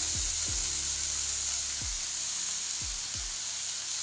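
Chopped onion, tomato, carrot and beans sautéing in hot oil with spices in a kadai: a steady sizzling hiss.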